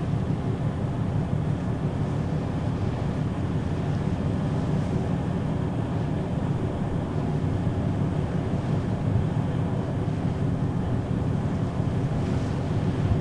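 Steady low drone of the ferry Aogashima Maru's engines, with wind buffeting the microphone and the wash of the sea alongside.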